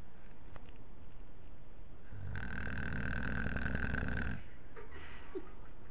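A man snoring, asleep: one long snore starting about two seconds in and lasting about two seconds.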